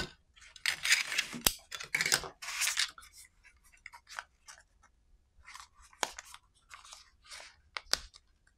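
Hands handling small plastic accessories on a tabletop: a sharp knock at the start, then crinkly plastic rustling for a couple of seconds, followed by scattered rustles and a few sharp clicks as a small frosted plastic case is turned over and worked open.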